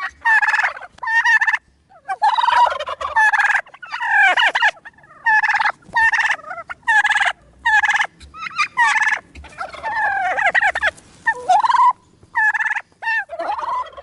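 Turkey toms gobbling over and over: about a dozen rapid, rattling gobbles in quick succession, each under a second long with short gaps between.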